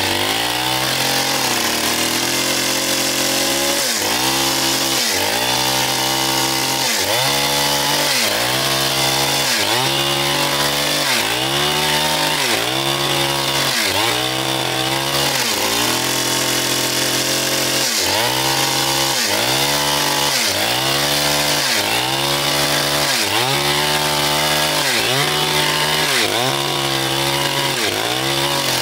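Chainsaw running under load in a large log, its engine pitch dipping and recovering roughly once a second as the chain bites into the wood.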